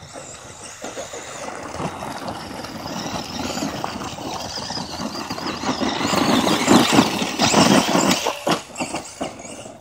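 Tamiya Blackfoot electric RC monster truck driving hard on loose gravel: a motor whine with its tyres crunching and slipping on the stones. The sound builds as the truck comes closer, is loudest a little past the middle with sharp crackles of spraying gravel, then drops off near the end.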